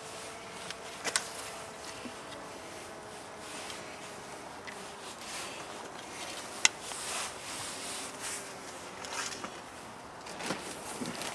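Honeybees flying close by, a wavering buzzing hum, with a few sharp clicks, the loudest about two thirds in.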